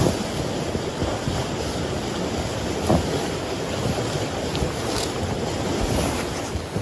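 Snow being swept off a small truck's windshield and cab with a long-handled snow brush: a steady rushing rustle of brushed and falling snow, with a couple of sharper knocks of the brush against the cab, about three and five seconds in.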